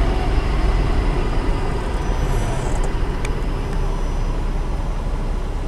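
Mitsubishi Kuda 1600 cc petrol engine, fitted with a Toyota Kijang 7K carburettor, running steadily, heard from inside the cabin as a low rumble mixed with road noise.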